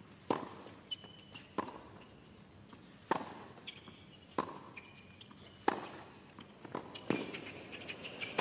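A tennis rally on a hard court: a ball struck back and forth by rackets, six sharp pops about 1.3 s apart, each with a short ring, over a hushed crowd.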